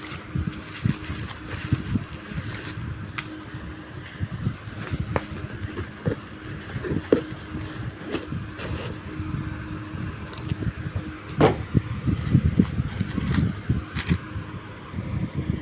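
A package being handled and opened by hand: irregular knocks, scrapes and sharp clicks, the sharpest about eleven seconds in, over a faint steady hum.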